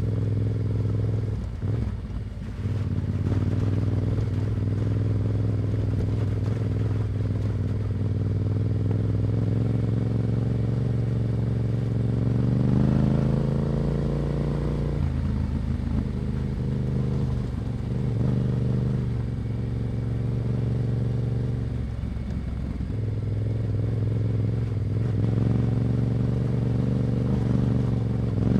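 Yamaha Ténéré 700's parallel-twin engine through an Akrapovic exhaust, running steadily while riding. The revs rise about halfway through, with brief throttle dips near the start and again later.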